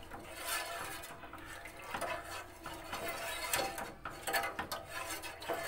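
Steel spoon scraping and clinking against the bottom and sides of a steel pot while stirring thin ragi porridge over a low flame, in irregular strokes. The stirring is kept continuous so the porridge does not catch on the bottom.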